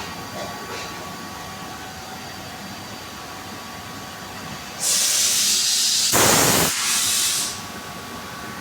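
Compressed air hissing in a tyre shop, a loud burst of about two and a half seconds starting near the middle, with a fuller rush in its second half, over a steady workshop background.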